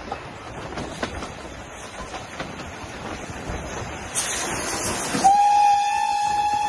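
Steam-hauled train running, with scattered rail-joint clicks under the running noise. About four seconds in there is a rush of steam hiss, and then the BR Standard Class 4MT locomotive's steam whistle sounds one long, steady, loud note.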